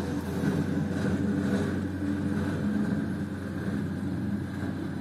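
Small compact loader's engine running steadily, a low hum as the machine works the yard.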